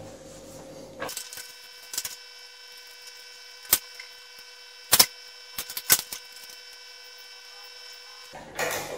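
Paper template strips and adhesive tape handled and pressed down on a glass tabletop: a handful of sharp clicks and taps, the loudest about five seconds in, over a faint steady hum of several tones.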